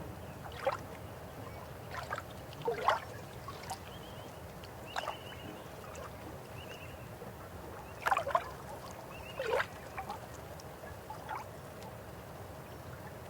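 River water running with a steady rush and scattered gurgling plops every second or two, the loudest about 3 s and 8 s in.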